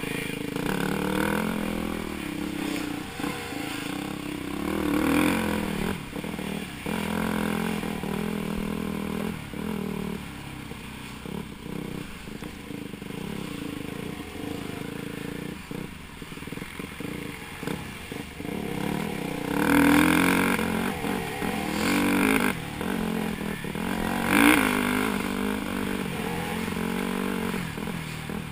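Off-road dirt bike engine heard from the rider's helmet, running under load and revving up and down with the throttle, with several hard rev-ups in the second half. Short knocks and rattles from the bike going over rough ground.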